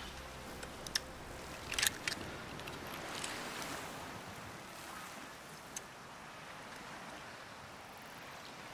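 Soft, steady water and surf ambience, with a few sharp clicks and scrapes of a knife blade working open a shellfish: about a second in, a cluster near two seconds, and once more near six seconds.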